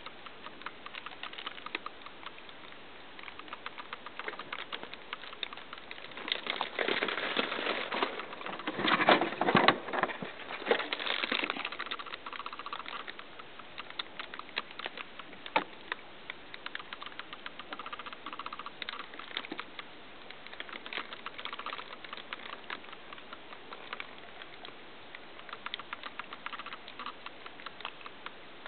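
A hamster's small claws clicking and scrabbling on the plastic casing of an electronic keyboard as it moves about, with a louder stretch of scuffling from about 7 to 11 seconds in.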